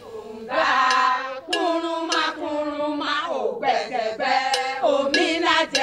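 Singing with long held notes that step from one pitch to the next, heard as a musical interlude.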